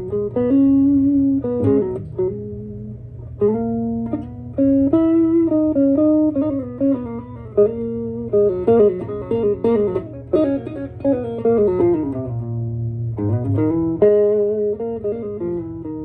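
Electric guitar played through a 1965 Fender Champ tube amp, freshly fitted with a new power cord and with its death cap removed. Picked single notes and chords, with a descending run of notes about ten seconds in, over a steady low hum.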